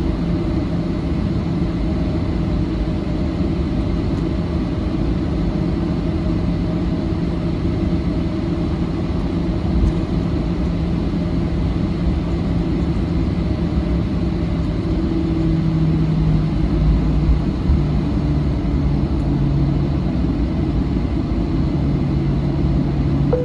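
Boeing 737-700's CFM56 jet engines running at taxi power, heard from inside the cabin: a steady hum over the rumble of the aircraft rolling along the taxiway and onto the runway. The engine hum shifts in pitch briefly a little past the middle.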